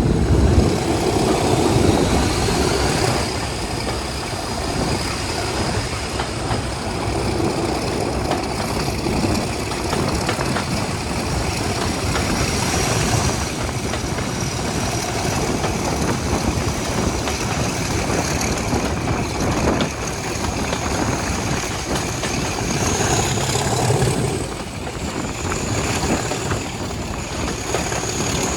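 Diesel locomotive and its train running, a steady engine noise with the rumble and rattle of wheels on the rails. A thin high squeal comes in near the end.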